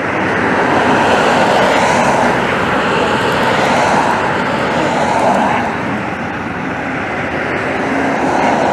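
Steady, loud engine noise, a rushing roar without a clear pitch that swells and eases slightly.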